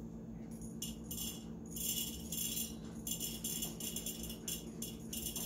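Roasted arabica coffee beans dropped by hand into a bottle, rattling against the glass in short, irregular bursts.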